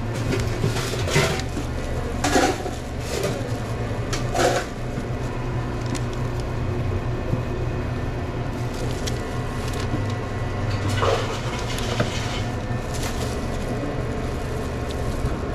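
Work noises behind a sandwich counter: scattered short clatters and rustles over a steady low machine hum.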